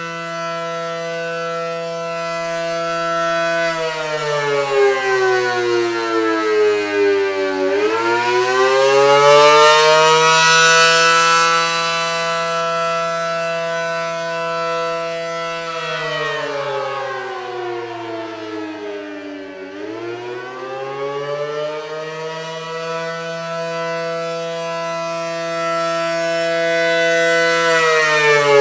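ACA Allertor 125 outdoor warning siren sounding the wailing Attack signal: a two-tone chord that holds high, falls, rises and holds again about every twelve seconds. It swells and fades in loudness as the rotating horns sweep past.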